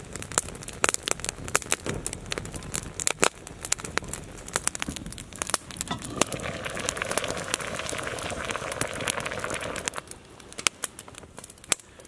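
Wood campfire crackling, with sharp irregular pops all through. A steady hiss joins for about four seconds past the middle.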